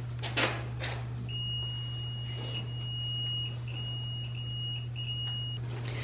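Multimeter continuity beep on furnace wiring: one steady high-pitched tone lasting about four seconds, with a few brief breaks, beginning about a second in. A steady low hum runs underneath, and there is brief handling rustle at the start.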